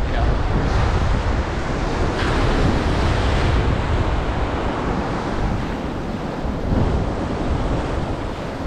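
Surf breaking on a sandy beach, a steady wash of noise with wind buffeting the microphone in a low rumble.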